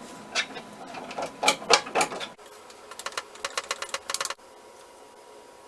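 Quick runs of sharp mechanical clicks and taps, broken by abrupt cuts, with a faint steady hum after the last run.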